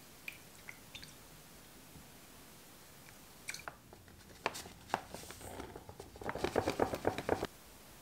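Bread flour being poured into a stainless steel mixing bowl: a few light knocks and ticks, then about a second of dense crunchy rustling near the end, the loudest part. A few faint taps at the start, from the spoon stirring yeast water in a glass measuring cup.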